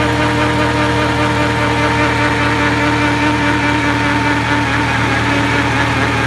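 Riding lawn mower engine running at a steady speed.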